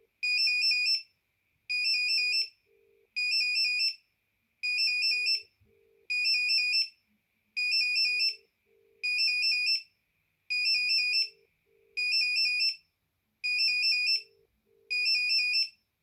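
Alcatel BC2 mobile phone ringing: a high electronic trilling ring that warbles quickly between two tones, each ring under a second long and repeating about every one and a half seconds.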